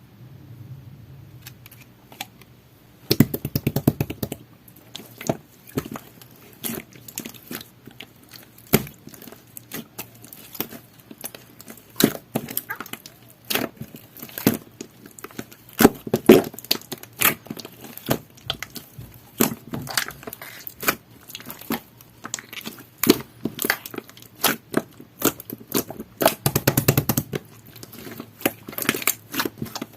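Jelly-textured slime being squished and pressed by hand, giving quick sticky clicks and small pops, with dense runs of crackling about three seconds in and again near the end.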